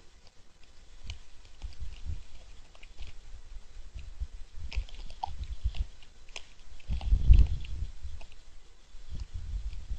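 Two young white-tailed deer bucks sparring, their small antlers clicking and knocking together in scattered light clacks. A heavier low thump comes about seven seconds in.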